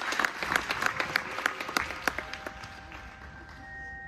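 Audience applauding, the claps thinning out and dying away over the first two and a half seconds. About two seconds in, a few long held notes come in as the percussion ensemble's music begins.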